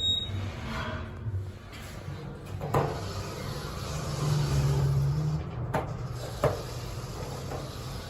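Otis Gen2 elevator's doors sliding and closing, with a short high tone at the start, a few sharp knocks, and a steady low hum for about a second and a half in the middle.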